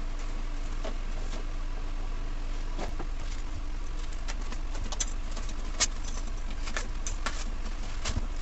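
Newspaper and packing tape crinkling and tearing as a wrapped parcel is cut open, a few scattered sharp crackles over a steady low hum.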